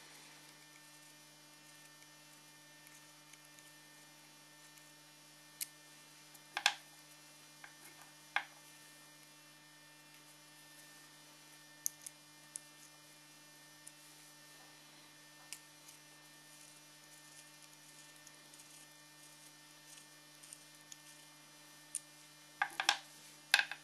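Small metal parts of a DIY PCP airgun's trigger unit clicking and tapping now and then as it is handled and its pins are worked to open it up, the sharpest clicks about a third of the way in and a quick cluster near the end. A steady low hum runs underneath.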